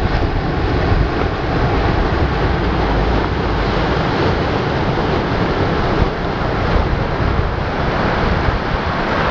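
Small waves breaking and washing up a sandy beach in a steady rush, with a low wind rumble on the microphone.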